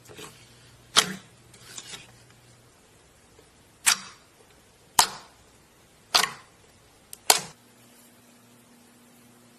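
Sharp pops from slime being pressed and poked, about six in all, spaced a second or so apart with two close together near the end, each with a short crackle after it.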